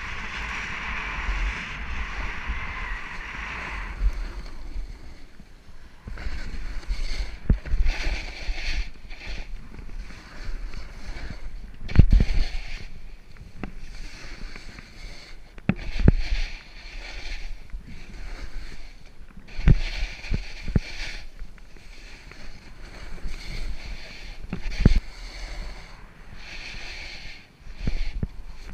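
A snowboard riding over moguls, its base and edges hissing and scraping through chopped-up snow, with wind buffeting the microphone. Several sharp thumps come as the board hits the bumps.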